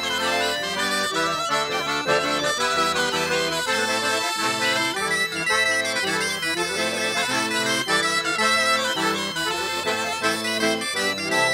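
Traditional Breton dance music: a melody on reed instruments, the accordion to the fore, playing continuously in quickly changing held notes.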